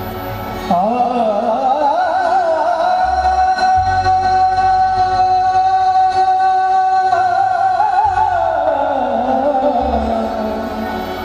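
Qawwali singing: a male lead voice comes in about a second in with a wavering, ornamented line, holds one long high note for several seconds, then slides gradually down, over a steady harmonium drone.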